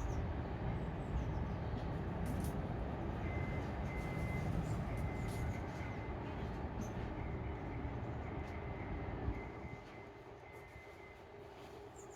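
A train running by with a steady low rumble that fades about nine and a half seconds in, with a faint, broken high-pitched tone over it.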